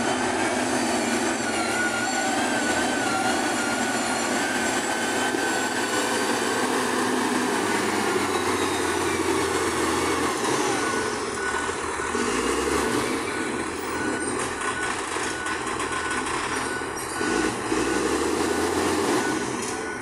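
XCMG GR135 motor grader's diesel engine running under load as it works over crushed gravel, with a wavering mechanical whine over the engine noise in the first half.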